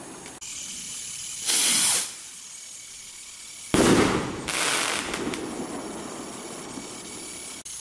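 A firework rocket lifting off with a short whoosh about a second and a half in, then bursting with a sharp bang about two seconds later. The burst fades with fizzing and a second brief hiss.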